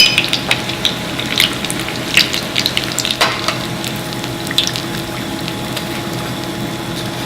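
Egg rolls frying in hot grease: a steady sizzle with scattered pops and crackles, and a sharp click at the very start.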